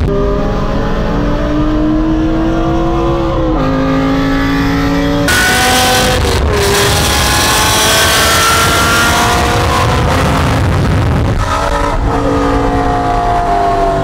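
A high-revving car engine accelerating hard at highway speed, its pitch climbing and dropping back at gear changes about three and a half seconds in and again near the end. Loud wind and road rush swells in about five seconds in.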